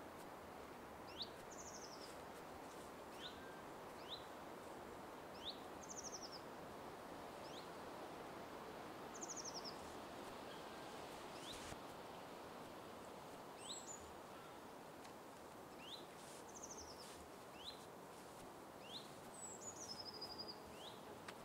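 Faint birdsong over a steady outdoor background hiss: many short, quick chirps at irregular intervals, with a rapid trilled note higher up every few seconds.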